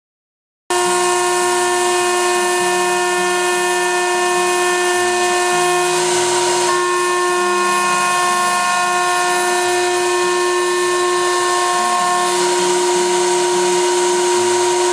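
CNC router spindle whining at high speed with the hiss of an end mill cutting aluminum, starting abruptly about a second in. Beneath it, lower motor tones shift pitch in steps as the machine's axes move.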